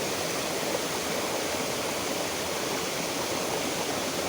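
Flowing river water rushing steadily, an even, unchanging wash of water noise.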